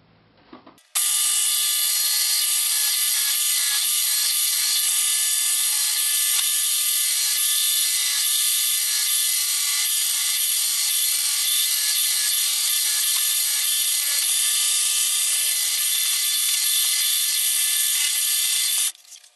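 Old bench drill press running, its bit boring into the wooden guitar body: a loud, steady mechanical whine with a noisy edge and several held tones. It cuts in about a second in and cuts off near the end.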